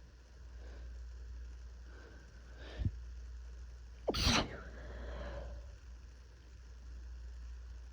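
A person with a cold sneezing once: a drawn-in breath about two seconds in and a brief catch near three seconds, then a loud, sudden sneeze a little past four seconds, trailed by a short breathy sound.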